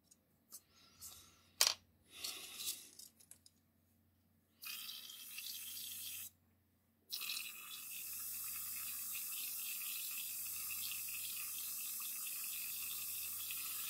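Airbrush spraying paint onto small model parts, a high even hiss. There is a short burst about four and a half seconds in, then after a pause a longer steady spray from about seven seconds in. Small clicks and knocks of parts being handled come first.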